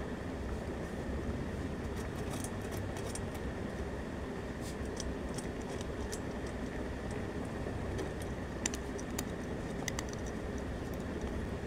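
Cat eating from a bowl: scattered, irregular small crunching clicks over a steady background hiss, coming in clusters a few seconds apart.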